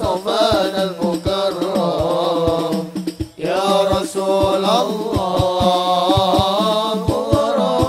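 A group of men singing an Arabic sholawat (devotional song praising the Prophet) in unison into microphones over a steady beat of hand drums. The singing breaks off briefly about three seconds in.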